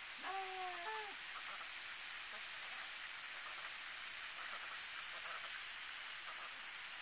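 A single drawn-out animal call about a second long, right near the start, from the farmyard livestock. It wavers once partway through and then stops, leaving only a steady hiss.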